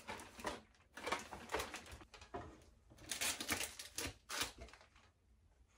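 Rummaging in a cabinet shelf: light knocks and rustling of packaged toiletries being moved and taken down, busiest a little past the middle.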